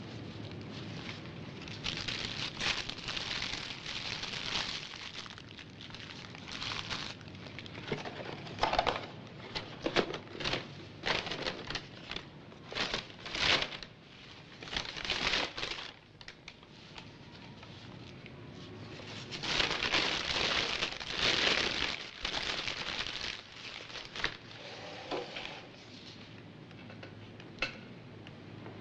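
Fast-food paper wrappers, napkin and paper bag rustling and being crumpled by hand, in irregular spells of crackling with quieter pauses between.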